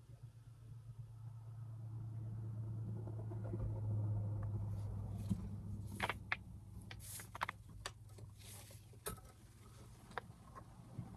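A vehicle's low engine hum swells over the first few seconds and then fades away. Under it, from about halfway in, comes a run of sharp clicks and knocks as the metal tubes and fittings of a garment rack are handled.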